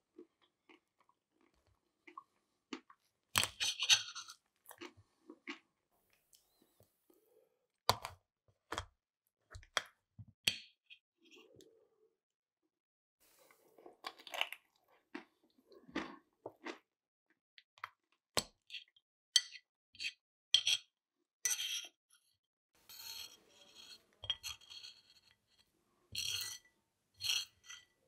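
Close-up eating sounds: a fork clinking and scraping on a plate, with short crunches, in scattered bursts separated by brief gaps.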